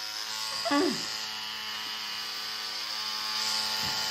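Dermapen electric microneedling pen buzzing steadily as its needle tip is worked over the skin of the forehead.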